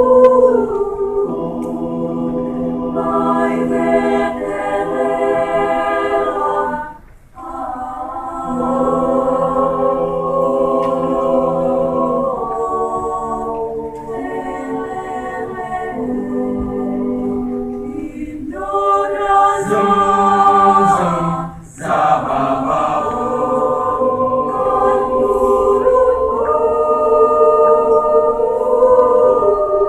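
Choir singing held chords that shift every few seconds, with two short breaks for breath, about seven seconds in and near the middle.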